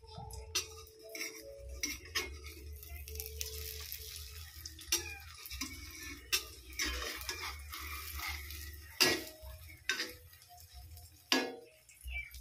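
A spatula knocks and scrapes against a steel wok while egg and tomato fry in oil with a light sizzle. There are scattered knocks, the two loudest about nine and eleven seconds in.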